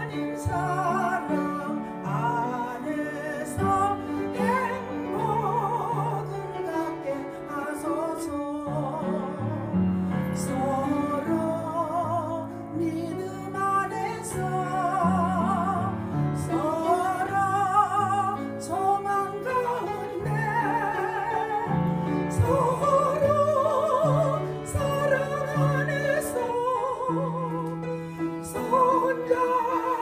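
A woman sings a slow solo with a wide vibrato through a microphone, accompanied by piano chords.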